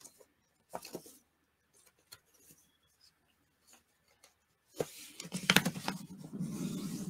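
Paper handling: a few faint rustles, then from about five seconds in, a click followed by steady rustling and rubbing as a torn book page is slid into a journal and smoothed flat by hand.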